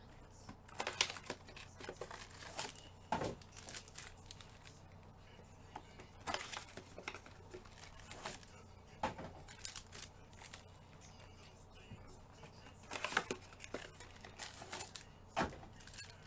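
Foil trading-card pack wrappers crinkling and tearing in irregular bursts of crackle and sharp clicks, with quiet gaps between.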